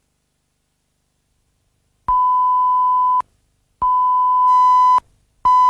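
Broadcast line-up test tone, a steady pure beep pulsed on and off. After about two seconds of silence come two beeps of a little over a second each with short gaps, and a third starts near the end.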